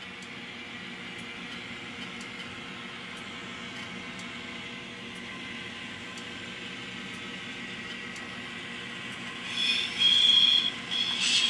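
Digital diesel-switcher sound from an N scale MP15 model's LokSound Micro decoder, played through its small cube speaker: the engine sound runs steadily with a held hum. About nine and a half seconds in, a loud high-pitched squeal comes in and out.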